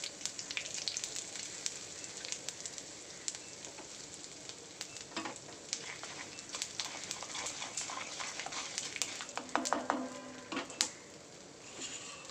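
Oil sizzling with many small crackles in a kadai as a South Indian tempering of dal, curry leaves and asafoetida powder fries, stirred with a wooden spatula.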